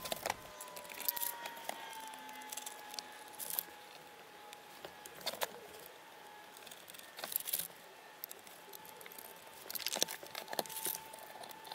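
Scattered light clicks, clinks and rustles of metal machine parts and plastic wrapping being handled, over a faint steady tone.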